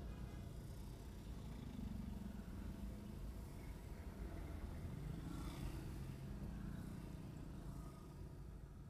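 Steady low vehicle engine and road rumble, with a brief swell of hiss about five to six seconds in.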